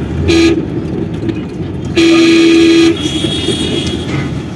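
Car horn honking twice: a short beep, then a steady blast about a second long. Underneath is the continuous noise of road traffic heard from inside a moving car.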